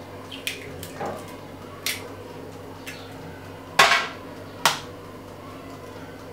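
Eggs being knocked against the rim of a cut-glass mixing bowl and broken open: a series of sharp knocks and clinks, the loudest a little under four seconds in with a short ring of glass.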